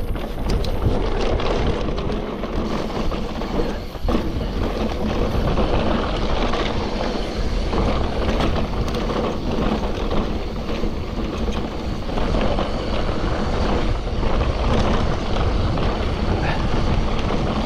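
Mountain bike descending a rough trail: a continuous rumble of tyres over dirt and rock, with the bike rattling and scattered sharp knocks from hits on the ground.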